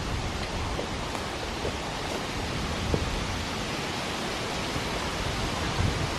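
Steady rushing outdoor noise with a low rumble, and a few faint footsteps on a dirt path.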